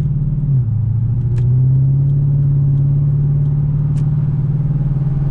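2002 Infiniti Q45's 4.5-litre V8 breathing through Nissan Titan shorty headers, heard from inside the cabin while driving: a steady deep exhaust drone with a muscle-car thump. About half a second in it drops in pitch, as at an upshift, then climbs slowly again as the car keeps pulling.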